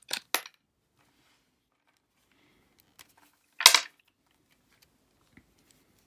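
USB cable plug pulled out of a laptop's port: two sharp clicks at the start. About three and a half seconds in comes a louder, short clack as the camera and cable are handled, followed by a few faint ticks.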